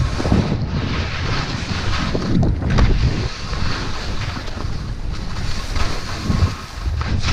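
Wind buffeting the microphone of a skier skiing downhill, with the hiss of skis turning through snow rising and falling.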